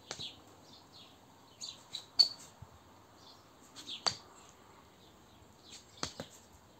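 Running shoes scuffing and tapping on stone paving as a foot is stepped back and forward from a plank. A short scrape and then a sharp tap come about every two seconds.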